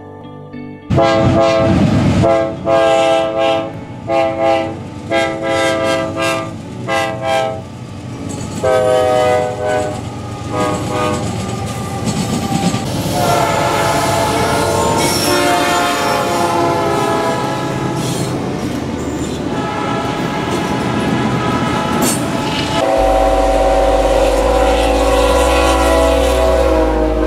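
Diesel freight locomotive air horns sounding, first in a run of short blasts, then in longer held blasts, over the rumble and wheel clatter of a passing train. Near the end a long horn sounds over a heavy, deep engine rumble as a locomotive passes close.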